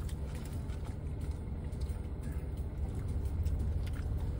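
Steady low hum of a car idling with the air conditioning running, heard inside the cabin.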